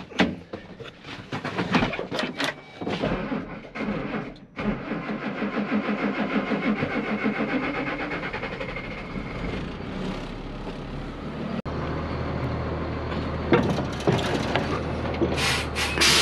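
Mack truck's diesel engine, dead-battery start on a jump pack: a few knocks, then the engine cranking over with an even pulse for about five seconds before it catches and settles into a steady low idle. A loud hiss near the end.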